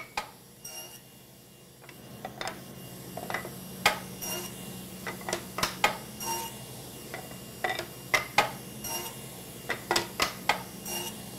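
Table saw running with a steady low hum that starts about two seconds in. Over it come many sharp, ringing clicks and knocks as wooden rails and the metal miter gauge are handled on the saw's metal table.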